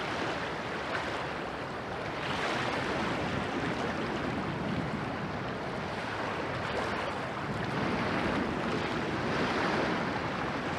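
Waves washing against the Rhine bank, mixed with wind: a steady rushing noise that swells slightly a few times.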